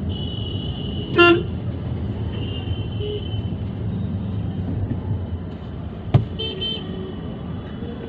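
Congested street traffic heard from inside a slow-moving car, with a steady engine and road rumble. Vehicle horns honk over it: one loud short beep about a second in, fainter toots now and then, and a sharp knock near six seconds followed by a quick double toot.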